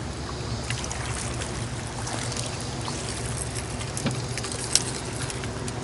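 Water trickling and splashing, with scattered light clicks and one sharper click a little under five seconds in.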